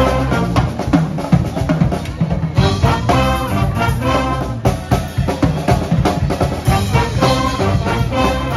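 Live brass band with a drum kit playing: brass chords over a steady drumbeat.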